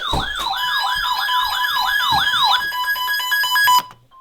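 Electronic siren wailing in fast falling sweeps, about three a second, then switching to a rapid pulsing tone before cutting off abruptly near the end.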